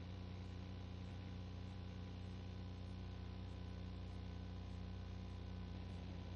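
A steady low hum over an even hiss, unchanging in pitch and level.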